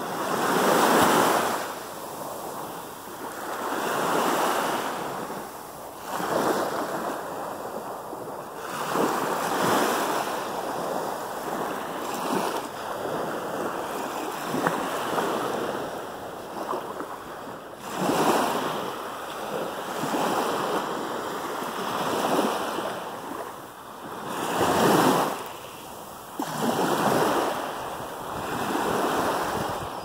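Small sea waves washing onto the shore, one rushing surge every two to three seconds, each swelling and then fading.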